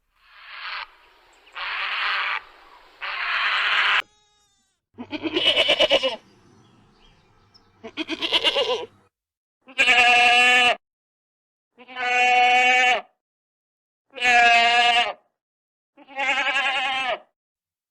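An animal calling: first three short, rough, noisy sounds, then six drawn-out calls with a clear pitch, each about a second long. The last four calls come about every two seconds and are the loudest.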